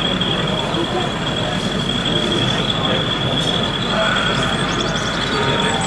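N gauge model train running on an exhibition layout, with a steady high-pitched whine over a continuous background hum of the exhibition hall.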